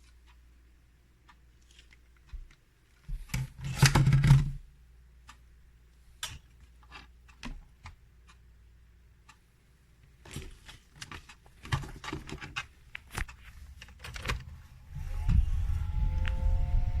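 Handling sounds: scattered clicks and a burst of rustling, then a run of clicks and knocks. About 15 s in, a steady low rumbling hum with faint held tones begins.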